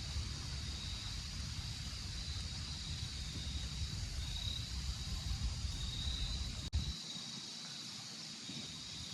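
Breeze rumbling on the microphone over a steady, high-pitched outdoor hum. A sharp click about seven seconds in, after which the rumble drops away.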